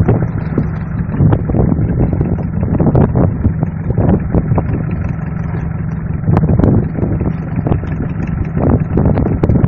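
Fishing boat's engine running steadily with wind buffeting the microphone, and irregular knocks and splashes as the gillnet is hauled in over the wooden hull.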